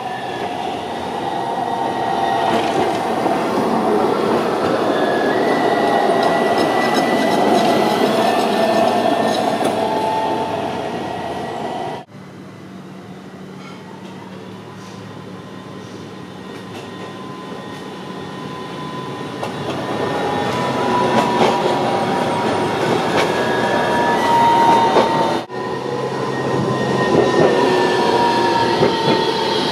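AnsaldoBreda Sirio low-floor trams running along the track and passing close, a broad running noise with a high steady whine over it. The sound drops suddenly twice and builds up again as a tram draws near.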